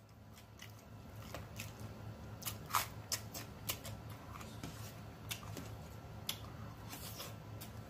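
Close-miked eating sounds of a person chewing and smacking their lips: a string of short, irregular wet clicks and smacks, over a low steady hum.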